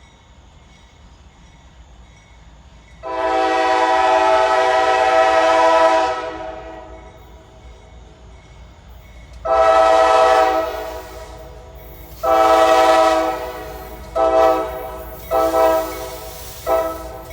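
Freight locomotive's multi-chime horn sounding a playful horn show: one long blast about three seconds long, two shorter held blasts, then a run of quick short toots near the end.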